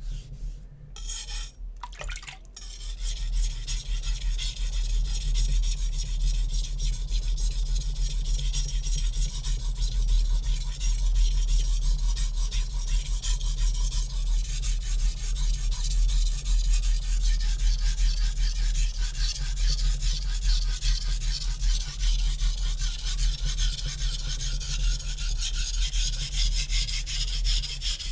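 Steel chef knife blade scraping back and forth on a wet Naniwa Superstone 400 whetstone. The scraping sets in steadily about two seconds in after a few light ticks.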